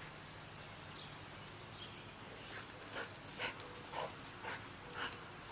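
Faint sounds of a lab-mix dog close to the microphone: a handful of soft short breaths or movements about half a second apart in the second half.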